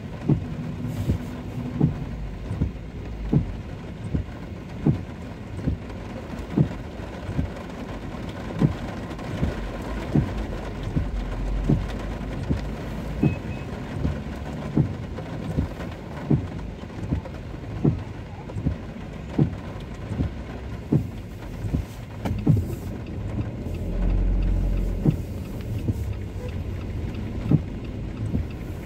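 Rain on a car's windshield and body heard from inside the cabin, with the windshield wipers thumping at the end of each stroke about once a second. A low engine and tyre rumble rises about 24 seconds in as the car moves off.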